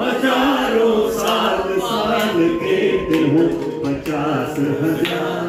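A man singing a melodic song into a handheld microphone, drawing out long, wavering notes.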